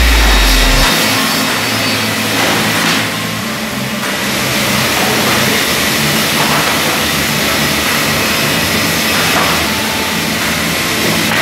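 Multiple rip saw running: a steady machine hum under a broad rushing noise from the motors and saw blades. A loud deep rumble at the start stops just under a second in.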